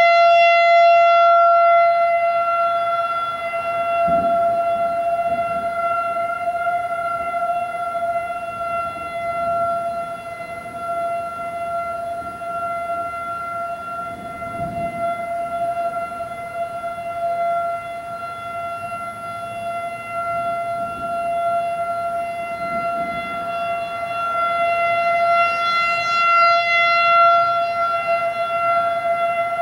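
Federal Signal 2001-AC single-tone rotating electromechanical warning siren wailing at a steady, unchanging pitch. Its loudness slowly fades and swells as the rotating head sweeps away and back around, loudest at the start and again near the end.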